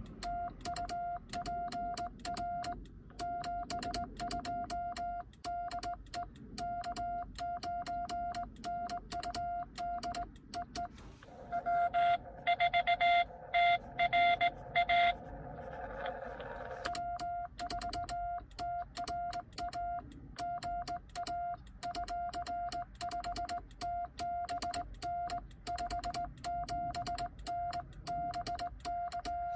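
Morse code beeps from a Xiegu X6100 transceiver: the sidetone of a home-made cootie sideswiper key being keyed, a steady mid-pitched tone switching rapidly on and off with a click at each element. About twelve seconds in, a louder, harsher Morse tone comes through the receiver over a hiss of band noise for a few seconds, the other station answering, before the operator's keying resumes.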